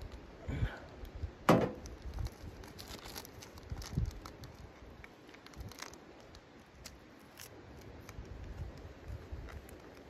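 A ceramic mug set down on a steel stove top with one sharp clack, followed by light rustling and small clicks of a tea bag and its wrapper being handled.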